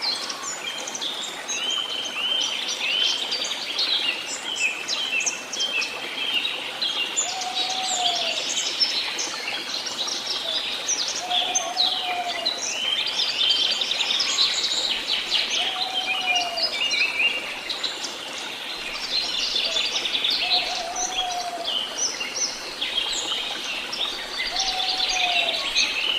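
Many songbirds chirping and singing at once in a dense, continuous chorus. A lower single call, rising then falling, repeats about every four seconds from about a third of the way in.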